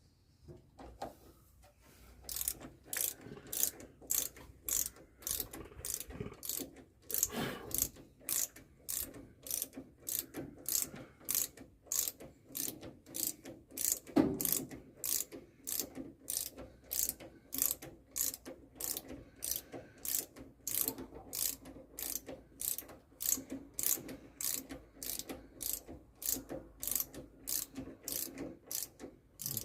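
Hand socket ratchet clicking in steady back-and-forth strokes, about two a second, as a brake assembly bolt is run in or out, with one duller knock about halfway through.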